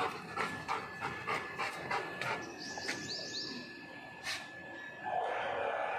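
German shepherd panting quickly, about three breaths a second, for the first two seconds or so. About five seconds in, a steady rushing noise comes in.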